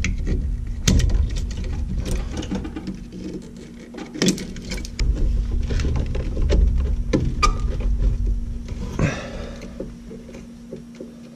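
Hands handling a furnace pressure switch and its wire harness: wires rustling and plastic parts clicking and knocking as the switch is worked into place, over a faint steady hum.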